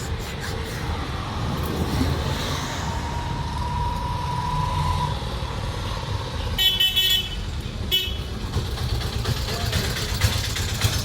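A vehicle horn toots twice, a longer blast and then a short one, over a steady low rumble of engines or traffic.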